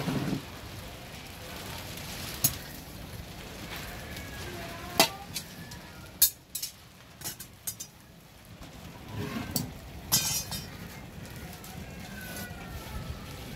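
Sharp metal clinks of iron tongs against a crucible and the rim of a small charcoal furnace, scattered every second or few, over a steady low hiss from the fire.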